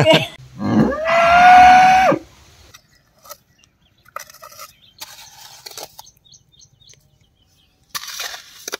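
A rooster crows once, the call rising and then holding for about a second and a half before cutting off. After it come faint scrapes and knocks of a short-handled hoe digging into wet soil on a stream bank, a little louder near the end.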